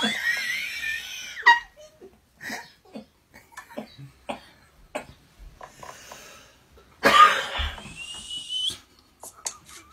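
A toddler's excited squeals and gasping breaths, with a loud shriek about seven seconds in.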